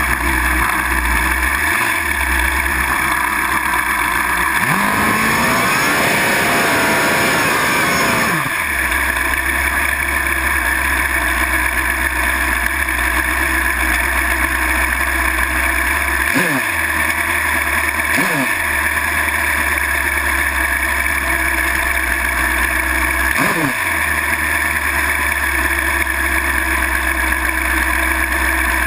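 Drag-racing motorcycle engine idling, heard close up from an onboard camera on the bike, revved up and back down over a few seconds about five seconds in, then given three short throttle blips in the second half.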